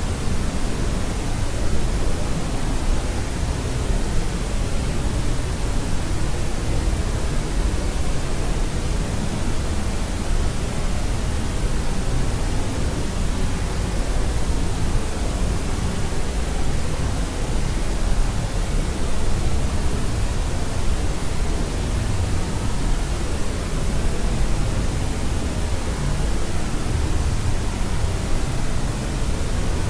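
Steady white noise for baby sleep: an even, unbroken rushing hiss, heavier in the low end, with no change throughout.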